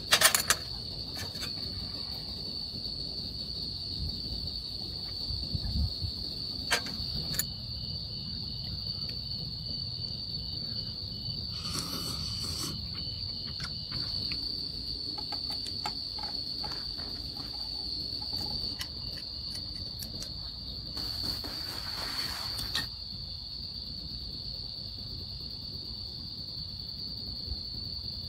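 Crickets chirping in a steady high-pitched chorus. A few sharp clinks of a spoon in a metal bowl sound near the start, and there are two brief hissy rushes later on.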